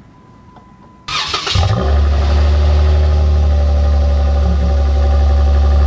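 Jeep Wrangler JK engine starting: a short crank about a second in, then it catches and settles into a loud, steady idle.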